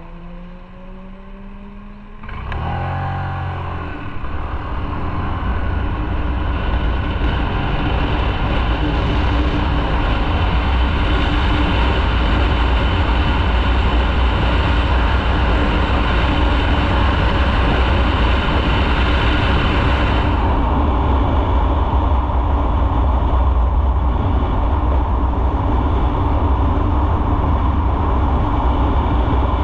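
Motorcycle engine rising in pitch as it accelerates for the first two seconds, then, from about two seconds in, loud steady wind and road noise over the engine's low hum at riding speed.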